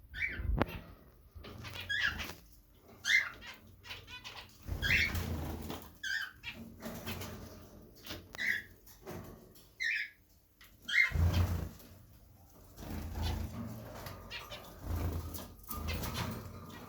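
Caged pet birds chirping in many short calls, mixed with bouts of low thumps and rustling in the cage as they feed.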